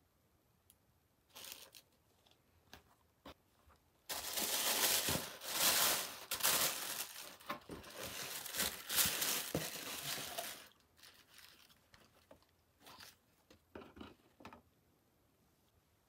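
Tissue wrapping paper crinkling and rustling as shoes are lifted out of a cardboard shoebox: a few short rustles, then about six seconds of loud, continuous crumpling, tailing off into a few light rustles and taps.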